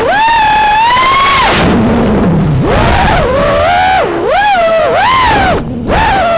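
FPV racing quadcopter's motors and propellers whining, the pitch rising and falling continuously with the throttle. The whine sags about four seconds in and briefly cuts out just before six seconds, then picks up again.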